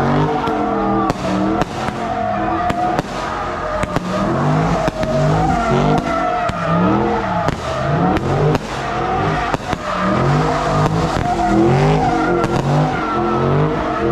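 Drift car doing donuts: its engine revs up and falls back over and over, about once a second, with tyres squealing and sharp pops in between.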